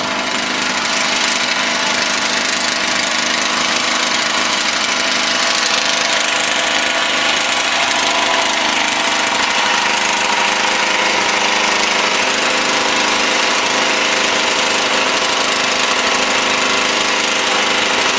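A motor running steadily, a dense even drone with no breaks.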